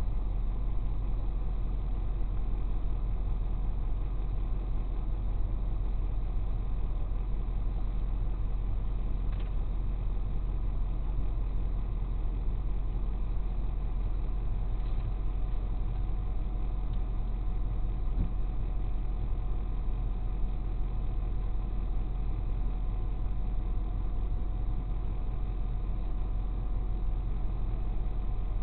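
Tow truck's engine idling steadily, heard from inside the cab, with a faint click or two.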